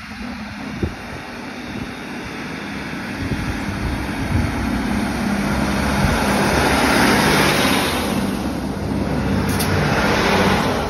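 Northern Class 156 Super Sprinter diesel multiple unit running along the platform and passing close by. Its diesel engines hum steadily under rising wheel-on-rail rumble, loudest from about six seconds in as the coaches go past.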